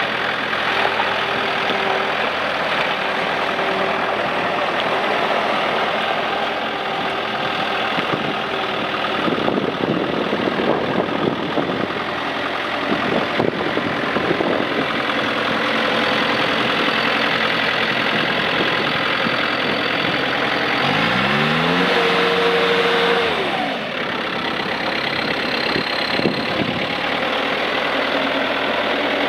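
2003 Bobcat S185 skid steer's diesel engine running, with knocks and rattles from the machine in the middle stretch. About three quarters of the way through, the engine revs up, holds for about two seconds, then drops back.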